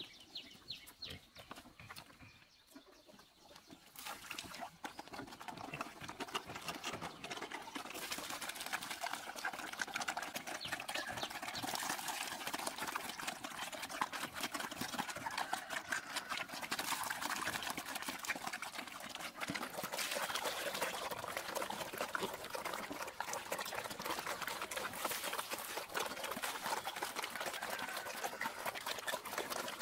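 Several pigs eating wet slop from a trough and a tire feeder: steady wet slurping and chomping, which gets louder about four seconds in.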